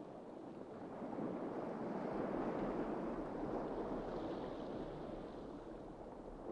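Soft rushing wash of water noise, with no clear tone, swelling about a second in and easing off toward the end.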